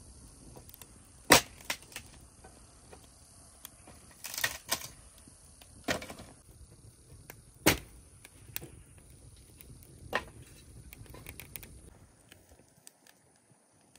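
Wood fire in a metal brazier crackling, with a scatter of sharp pops over a faint steady hiss; the two loudest pops come about a second in and a little past the middle.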